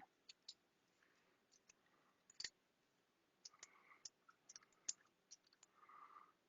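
Faint, scattered clicks and clinks of loose coins being handled from a soda vending machine's coin box, the loudest about two and a half seconds in and again near five seconds.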